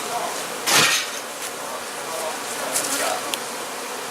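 Honeybees buzzing in numbers around their hive, a steady drone, with one brief loud rush of noise about a second in and a couple of faint clicks near the end.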